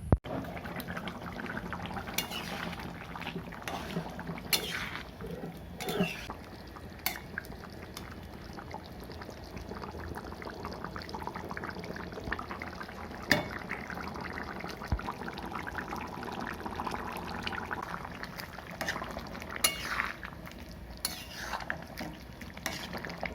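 Metal utensil clinking and scraping against a kadai of cooking chicken, over a steady sizzling hiss, with a few sharp knocks against the pan.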